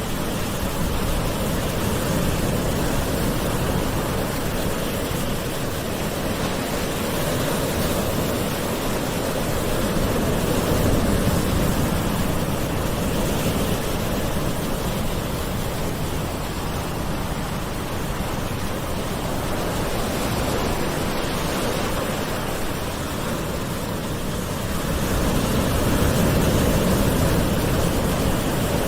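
Gentle ocean waves washing on the shore in a steady rush, swelling and easing slowly, louder around the middle and again near the end.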